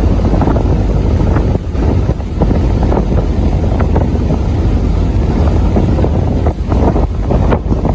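Wind buffeting the microphone: a loud, uneven rumbling noise that rises and falls with the gusts.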